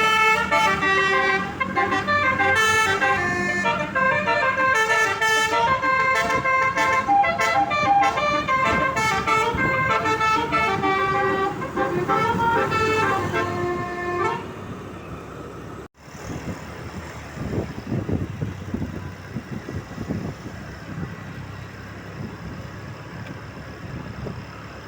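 A bus's basuri multi-tone melody horn plays a tune of quickly changing notes for about fourteen seconds, then stops. A low engine and road rumble follows.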